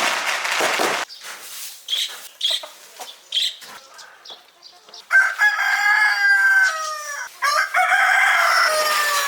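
Chickens clucking with scattered short calls, then a rooster crowing twice, each crow a long call of about two seconds that falls in pitch at the end. A brief rush of noise opens it.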